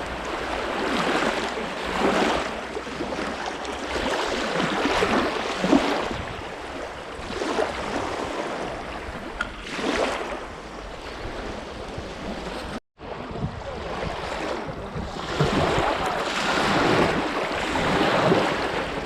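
Strong gusty wind buffeting the microphone, with waves washing against the reservoir shore; the noise surges and eases every few seconds. The sound cuts out for a split second about thirteen seconds in.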